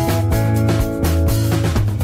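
Background music with a steady drum beat under sustained pitched instrument notes and bass.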